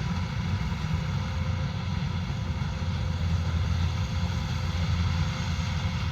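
Kubota DC105X combine harvester's diesel engine and machinery running steadily at a constant speed.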